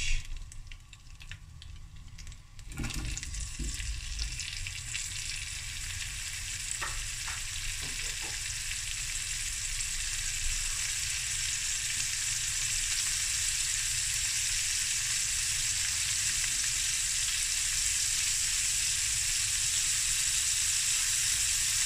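Pieces of boerewors sausage sizzling in hot olive oil and garlic-and-herb butter in a pan. The sizzle starts about three seconds in as the pieces go into the pan and grows steadily louder.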